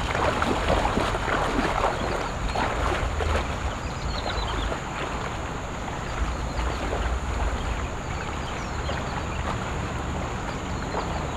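Feet wading through a shallow stream, water splashing and sloshing around the legs with each step, over a low rumble of wind on the microphone.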